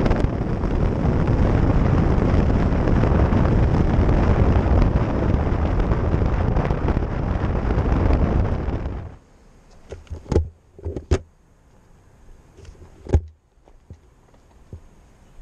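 Wind and road noise from a motorcycle riding at speed, a loud steady rush on the mount-camera's microphone. About nine seconds in it cuts off abruptly to quiet, broken by a few sharp knocks.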